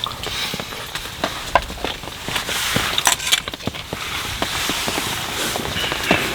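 Wood campfire crackling, with irregular sharp snaps and pops over a hiss that swells twice.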